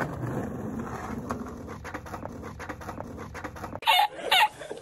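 Skateboard wheels rolling downhill on asphalt, a steady rolling noise with scattered clicks that slowly fades as the board moves away. It cuts off abruptly near the end, and two short, high-pitched cackling laughs follow.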